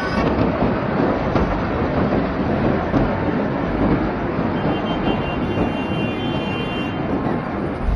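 Loud, steady rumbling noise with no distinct blows or breaks. A faint high thin tone rides over it for a couple of seconds in the middle.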